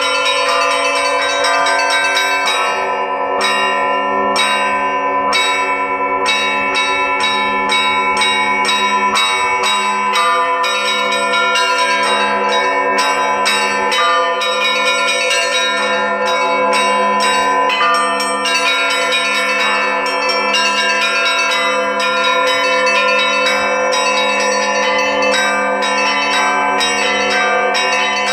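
A set of Russian Orthodox church bells from the LITEX foundry, rung by hand in a full peal (zvon). Rapid, rhythmic strokes of the small treble bells ring over the sustained hum of the larger bells, and a deeper bell comes in about two and a half seconds in.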